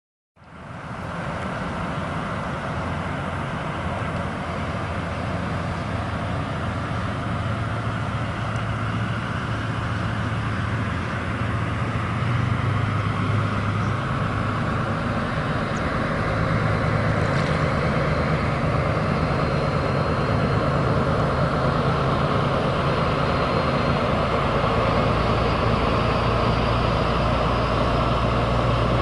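Voskhod hydrofoil boat running on its foils, its diesel engine droning steadily over the rush of water and spray. The sound grows gradually louder as the boat approaches, and a faint high whine slowly rises in pitch in the second half.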